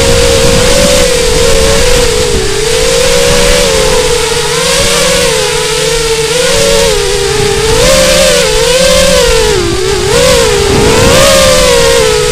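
FPV quadcopter's electric motors and propellers whining as heard by the onboard camera, the pitch rising and falling constantly with throttle changes, over a steady rush of air noise.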